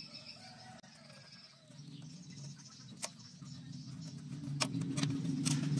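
An engine hum that grows steadily louder, with a few sharp clicks from hands working a plastic wiring connector.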